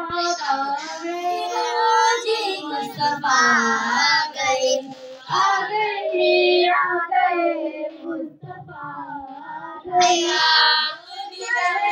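A girl singing a naat, an Urdu devotional song in praise of the Prophet, into a microphone in long held phrases.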